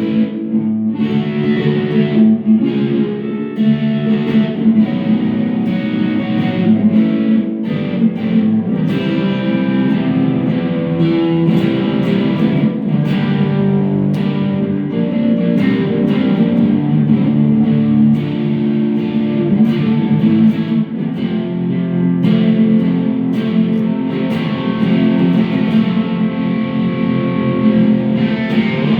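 Electric guitar played through a Boss Katana amp running into a Fender Acoustasonic amp, with a steady flow of picked notes and chords ringing together.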